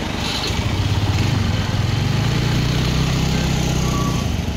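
A small engine running, a steady low drone that grows louder about a second in and drops away shortly before the end.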